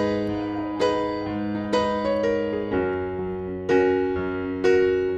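Background music: a gentle piano-type keyboard playing slow chords, one about every second, each fading before the next.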